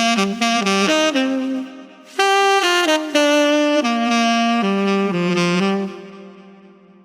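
Solo saxophone playing: a quick run of short notes, then a held note that fades. After a brief pause comes a phrase of longer sustained notes that dies away near the end.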